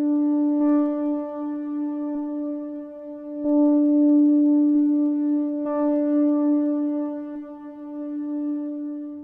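Hardware synthesizer holding one sustained note, swelling louder about three and a half seconds in, then thinning out near the end.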